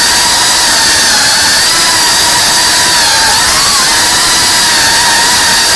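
GEPRC Cinelog cinewhoop FPV drone's brushless motors and ducted propellers whining steadily in flight. The pitch wavers slightly with throttle and rises briefly about three and a half seconds in.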